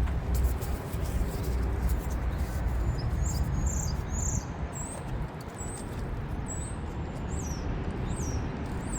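A small bird chirping in short, high notes, several of them dropping in pitch, starting a few seconds in, over a steady low rumble and a few faint clicks.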